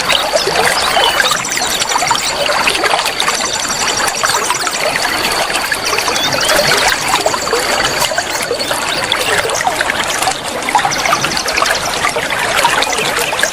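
Running water trickling and splashing steadily, with rapid high-pitched trills starting and stopping over it every second or two.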